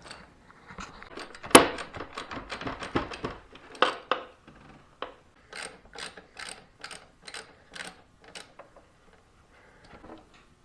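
Socket ratchet clicking as motorcycle triple clamp bolts are undone: one sharp click about a second and a half in, a quick run of clicks, then slower single clicks about two a second.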